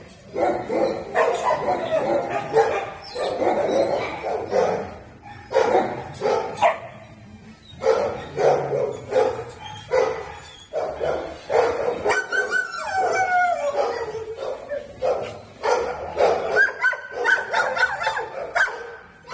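Dogs barking and yipping over and over, in short calls that follow each other closely, with a few drawn-out whining calls.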